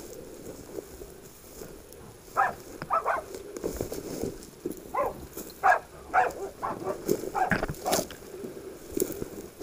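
Pig dogs barking in short, quick bursts, about a dozen of them starting a couple of seconds in, at a boar they have caught. Footsteps and brushing through tussock grass run underneath.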